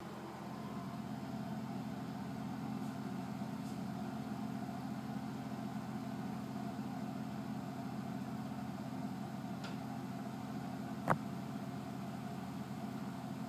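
Steady mechanical hum with a single sharp click a little after eleven seconds in.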